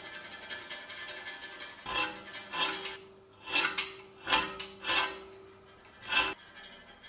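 Metal tubing of a brazed bicycle rack being worked by hand with an abrasive: a quiet steady scraping, then about nine separate strokes with a faint ringing tone from the tube, stopping shortly before the end.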